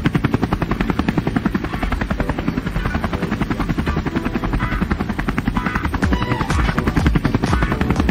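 Helicopter with its main rotor turning at speed on the pad, a rapid, even beat of the blades over the turbine's whine. It gets a little louder over the last couple of seconds as it builds power for lift-off.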